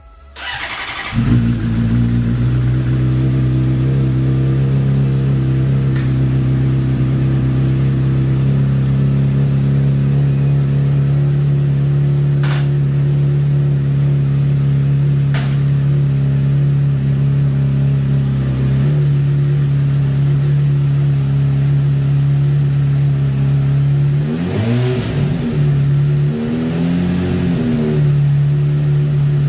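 Honda CBR600RR's inline-four engine, fitted with a Yoshimura slip-on exhaust, cranked on the starter and catching within about a second, then idling steadily in neutral. Near the end the engine note dips and rises twice.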